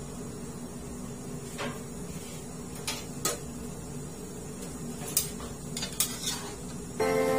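Metal clinks and knocks against an aluminium wok as yardlong beans are tipped in from a metal bowl and a metal spatula goes into the pan, a handful of sharp separate clinks over a soft frying sizzle. Background music starts near the end.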